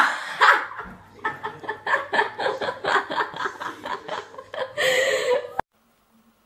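A person laughing in quick rhythmic bursts, about four or five a second, after a loud sudden outburst at the start. Near the end comes a louder, noisier burst, then the sound cuts off suddenly.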